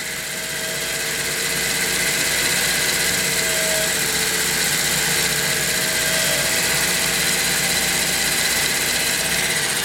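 Small lathe running steadily while its cutting tool faces off the end of a pool cue shaft's ferrule, peeling off curling chips.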